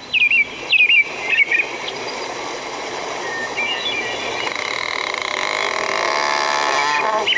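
Sound effects opening a recorded children's song: a few short whistle-like chirps in the first second and a half, then a swelling, shimmering sound that grows steadily louder.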